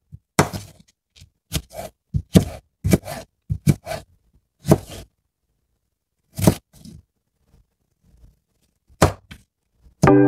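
Chef's knife slicing cucumber into strips on a cutting board: about a dozen irregular knocks of the blade meeting the board, further apart in the second half. Music starts up at the very end.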